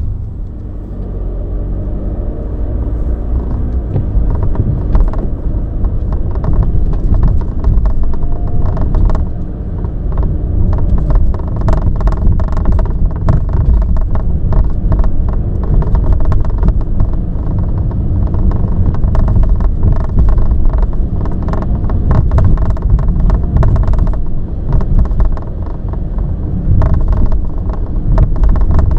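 Cabin of a VW T6.1 bus driving over a rough, potholed road: a steady low road rumble with frequent sharp rattles and clicks from the trim at the A-pillar as the van goes over bumps.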